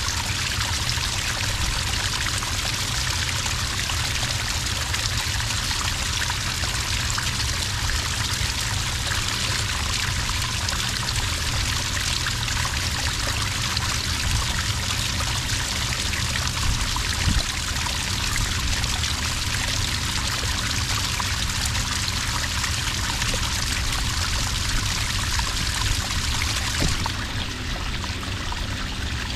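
Small cascade of water pouring steadily into sand, a continuous pouring and trickling.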